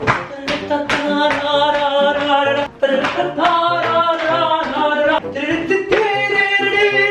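Music with a voice singing long held notes in three phrases, each breaking off briefly before the next.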